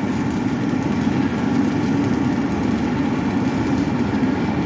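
Steady drone of running machinery, engine-like, with a constant low hum that does not change.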